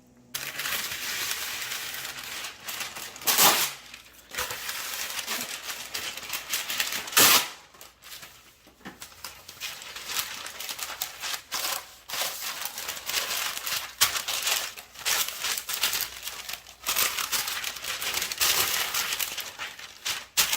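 Packaging being crinkled, rustled and torn open, with two brief louder bursts about three and seven seconds in.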